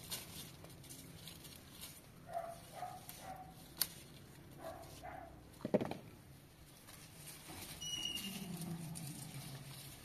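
A few short animal calls, the longest a low falling one near the end, with one sharp knock a little past the middle.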